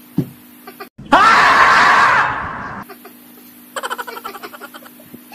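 A woman's very loud shriek of laughter, about a second in and lasting under two seconds, with a rising pitch at the start. Near the end it turns into quick, pulsing giggles.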